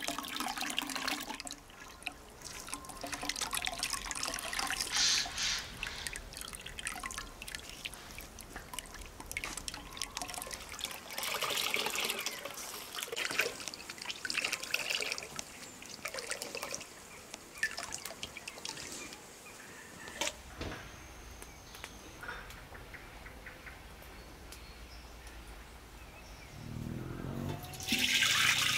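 Rosehip juice dripping and trickling with small splashes as a cheesecloth bag of pulp is squeezed by hand over a basin of juice. Near the end a basinful of the juice is poured into a large pot, a loud steady pouring.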